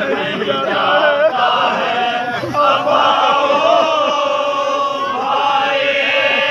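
Group of men's voices chanting a noha, a Muharram lament, together in long held melodic lines with short breaks between phrases.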